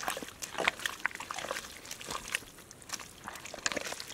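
Bare hands squelching and slapping through thick wet mud and muddy water, a quick irregular run of short wet squelches.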